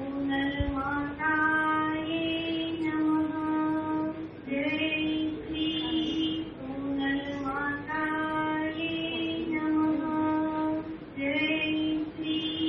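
Women's voices singing an aarti devotional hymn in slow phrases of long held notes, with a short break between phrases every few seconds.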